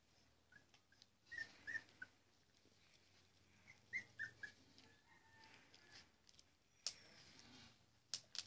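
Nursing puppies giving short, high squeaks in two little clusters, with a few sharp clicks near the end.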